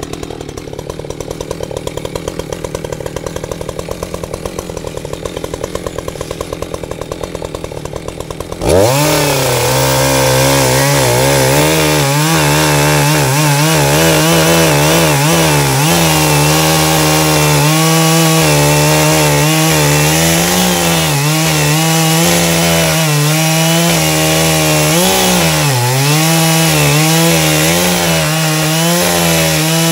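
Echo CS-620PW two-stroke chainsaw idling with a rapid even putter, then throttled up suddenly about nine seconds in. It runs at full revs while cutting into a tree stump, the pitch sagging and recovering as the chain bites into the wood.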